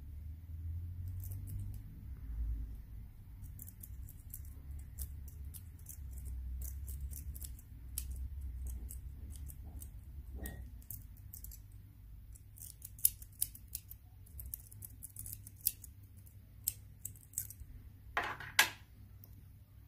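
Light metallic clicking and scraping of a hand-filed brass key worked in and out of a Master Lock 6271 puck lock's brass plug, over a low handling rumble. The clicks come thick and irregular in the second half, with a louder cluster near the end.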